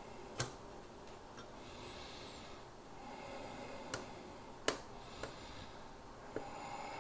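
Small metal hardware clicking as fingers turn a nut onto a mounting screw that holds a circuit board to a metal chassis. A few scattered light clicks, with a sharper one just after the start and the loudest about two-thirds of the way through.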